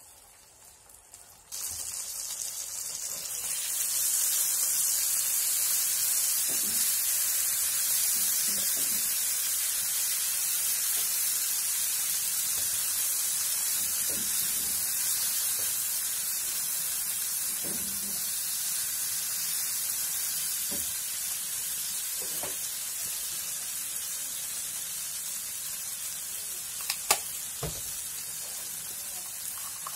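Sambal, tomato sauce and sweet soy sauce sizzling in hot oil in a wok, starting suddenly a second or two in and growing louder soon after, then a steady hiss. Near the end come a couple of sharp taps of a silicone scraper against the wok.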